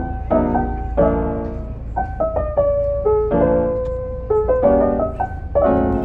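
Background piano music: a light melody over struck chords.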